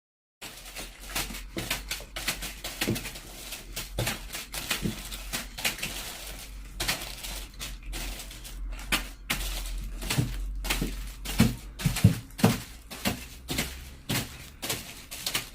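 Irregular clicks and knocks of hard objects being handled and set down on a tabletop, dozens of them at an uneven pace, with a low steady hum underneath.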